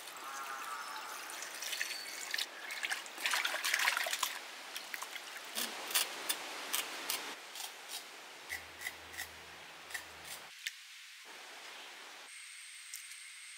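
Water poured over raw chicken pieces in a clay pot, splashing and trickling for about four seconds. Then a knife paring a potato makes a run of sharp separate clicks and scrapes, about two or three a second, which stop near the end.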